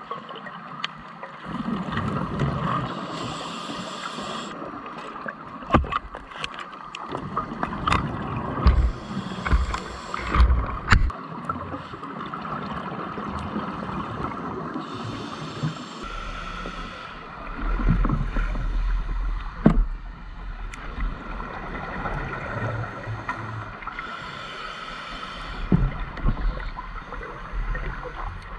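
Underwater sound of a scuba diver: exhaled bubbles from the regulator gurgling out in bursts every few seconds, with scattered sharp clicks and knocks. A low rumble comes in about halfway through.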